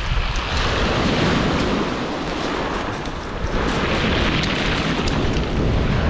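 Sea waves breaking and washing up a pebble beach, with wind buffeting the microphone. The surf swells, eases briefly about three seconds in, then builds again.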